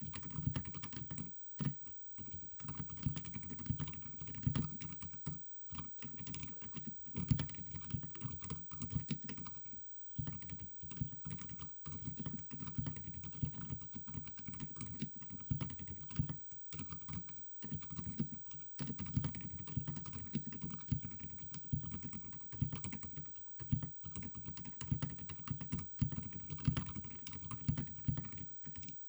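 Typing on a Keycool KC84 mechanical keyboard with Outemu Silent White linear switches and XDA-profile keycaps: rapid, low-pitched keystrokes in fast runs, broken by brief pauses a few times.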